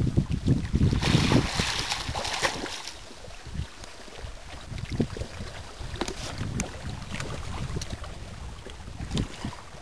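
Lake water splashing and lapping around a swimmer, with wind buffeting the microphone. The wind rumble and a rushing hiss are strongest in the first few seconds, then it settles to softer lapping with scattered small splashes.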